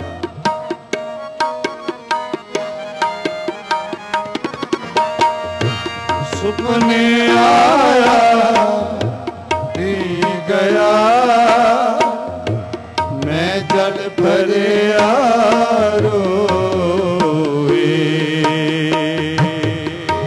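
Shabad kirtan music: tabla playing a steady rhythm of strokes under a harmonium melody.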